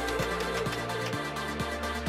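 Electronic background music with a steady beat of about two strokes a second over held bass notes.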